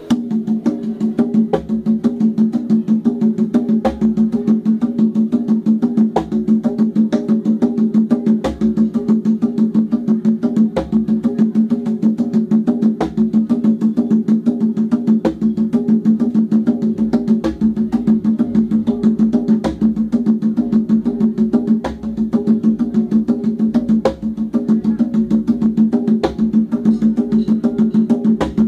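A set of three congas played with bare hands in a fast, steady, unbroken rhythm of hand strokes.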